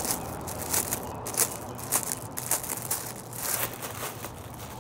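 Clear plastic packaging bag crinkling as it is handled and pulled open, in irregular sharp crackles.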